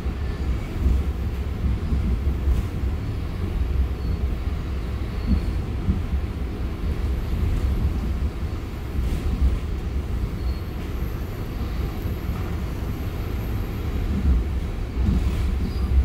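Steady low rumble of a commuter train in motion, heard from inside the passenger car.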